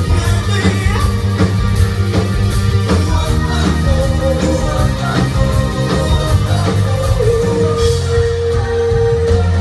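A rock band playing live: electric guitar, bass and drum kit, loud and steady. A long held note comes in about seven seconds in and sustains nearly to the end.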